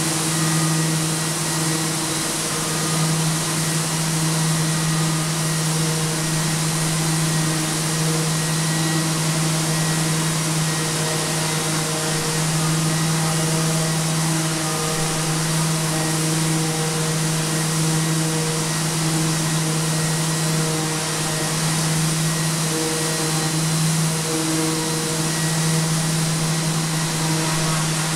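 Electric orbital sander and its Festool dust extractor running steadily while sanding compressed charcoal off a wall: a constant hum with a steady hiss.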